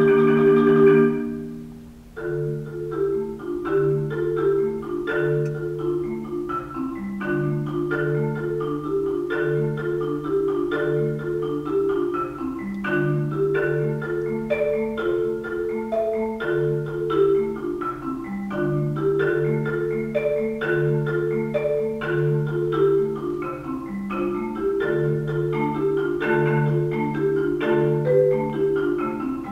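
Solo marimba played with four yarn mallets. A loud ringing chord fades out about two seconds in, then quick repeating note patterns run steadily over held low notes.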